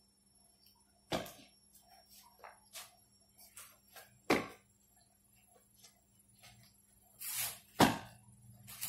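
Badminton racket striking a shuttlecock with sharp hits, three times about three and a half seconds apart, during backhand strokes. The last hit is the loudest, with a short swish just before it and fainter taps between the hits.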